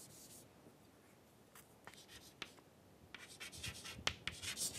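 Chalk writing on a chalkboard: scratchy strokes and small taps of the chalk, sparse at first and coming thick and fast in the second half. A brief soft rub of a board duster just at the start.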